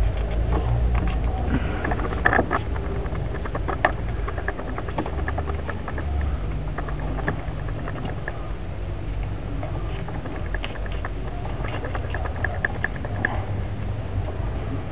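Scattered small clicks and rustling, with a sharper tick about two seconds in and another about four seconds in, over a low steady rumble.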